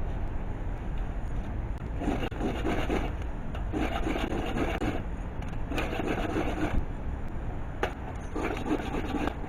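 A hand tool rasping on wood in four slow strokes, each about a second long, with a single sharp click between the last two.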